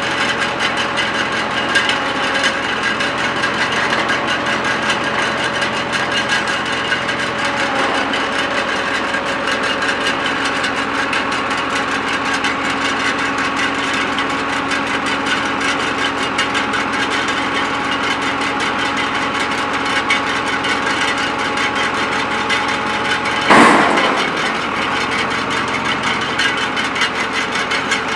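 Tractor engine running steadily while its hydraulics lower the loading table of a New Holland 1002 stack wagon, with one loud clunk about 23 seconds in.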